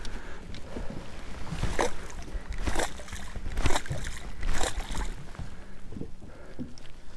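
Small waves slapping against the hull of a boat, four short splashy hits about a second apart, over a low wind rumble on the microphone.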